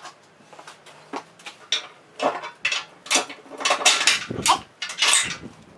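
Steel pins and parts of a snow plow blade clinking and knocking together as the plow is assembled by hand: an irregular series of sharp metallic clicks and taps, busier after the first couple of seconds.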